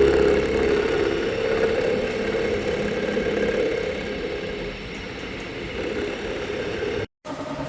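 SM4 milling machine running under its electric motor, a steady gear whine that eases off somewhat over several seconds. Near the end it cuts off abruptly and a different machine running sound with a quick, even pulsing takes over.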